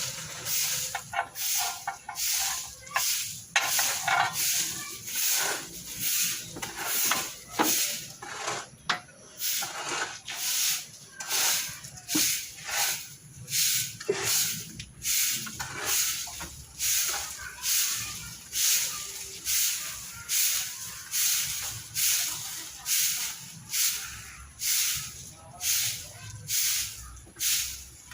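Short hissing pulses repeat steadily, about three every two seconds. A few light metal clicks and clinks fall in the first half, from the suction hose being fitted onto a car's AC compressor.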